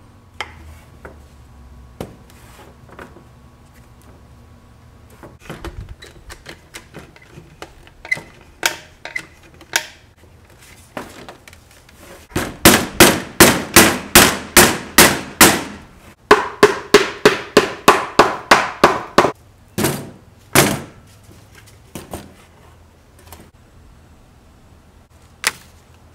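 Rapid, loud knocking on wood, about four strikes a second, in two long runs with a short pause between, as the glued box joints of pine panels are tapped home to close up a six-sided crate. Lighter scattered taps and clicks come before the runs, and a few single knocks after them.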